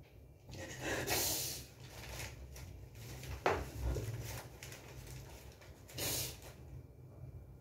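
Thin paper sheets rustling and crinkling as handfuls are picked up and leafed through, in short bursts, with sniffling breaths in between. One sharp crackle comes about three and a half seconds in.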